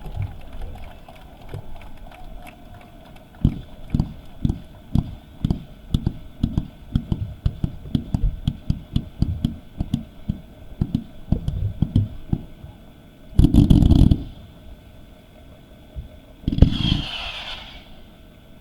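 Fireworks going off: a run of sharp bangs, about two to three a second, followed by two longer, louder bursts near the end.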